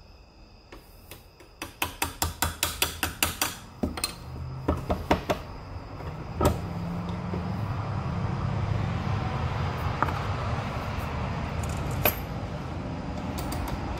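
A quick run of sharp clicks and clatter, about seven a second for two seconds, then a few more clicks and single knocks, from handling a powder bottle and tools at a reloading bench. About six seconds in a steady low hum sets in and carries on.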